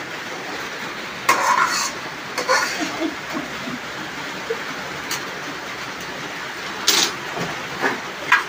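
Metal cooking pots and a basin clinking and clattering in short bursts, about a second in, again a second later and a few times near the end, over a steady hiss of rain.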